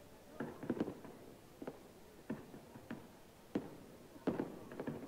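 Aerial fireworks bursting in an irregular series of sharp bangs, about eight of them, some coming in quick pairs, each with a short echo.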